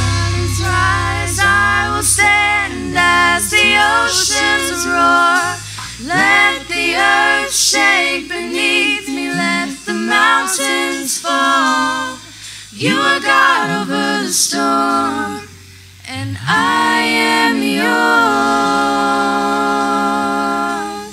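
Worship song sung mostly by voices, with a woman singing lead and almost no instruments. A held low bass note drops out about five seconds in.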